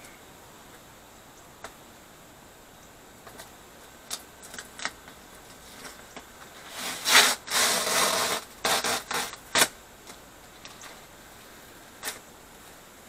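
An adhesive packing sticker being peeled and torn off a cardboard box: small scrapes and clicks, then a loud tearing lasting about three seconds in several pulls, just past the middle.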